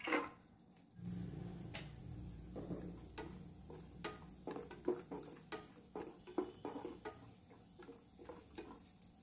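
Cashews and almond halves tipped from a steel plate into ghee in a stainless steel pan, with a clink as they land. They are then stirred with a wooden spatula that knocks and scrapes against the pan in many irregular clicks, over a soft low steady noise during the first couple of seconds.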